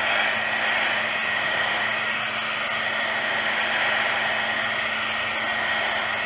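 A small scrapbooking heat gun running steadily, blowing hot air. It is a constant rushing hiss with a faint steady high whine.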